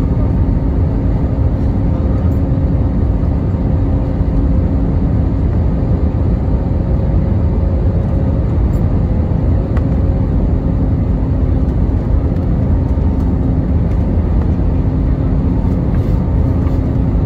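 Inside the cabin of an Airbus A320-family jet on final approach: a steady low rushing roar of airflow and engines, with a humming engine tone that fades and returns a few times.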